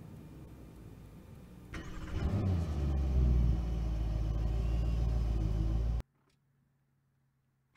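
Porsche Panamera 4S Diesel's twin-turbo V8 diesel engine starting about two seconds in, its revs flaring briefly and then settling into a steady idle. The sound cuts off suddenly about six seconds in, leaving near silence.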